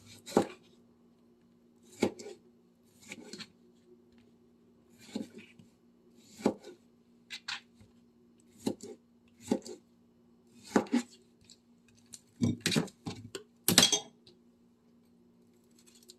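Kitchen utensils and dishes clinking and knocking: about a dozen separate clatters at irregular intervals of roughly a second, over a steady low hum.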